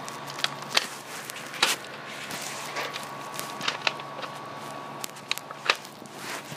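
Irregular sharp clicks and taps, about seven of them, over a faint steady hum.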